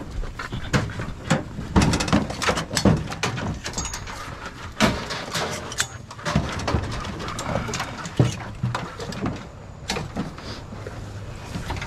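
Hunting hound being caught and handled at the back of a pickup truck: rustling and scuffling with a quick run of sharp knocks and clicks.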